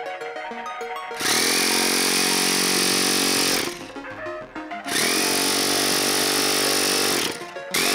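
Handheld electric starter pressed to the spinner of a model airplane's glow engine, cranking it in two runs of about two and a half seconds each. Each run opens with a rising whine and then holds a steady pitch, and the engine does not fire.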